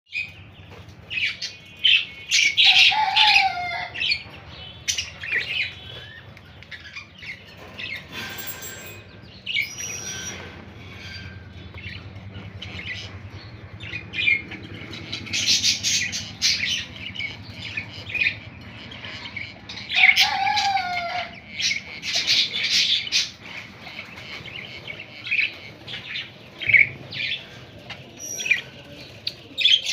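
Budgerigars chirping and chattering: a run of quick, high chirps and warbles, with louder spells a few seconds in, around the middle and about two-thirds of the way through.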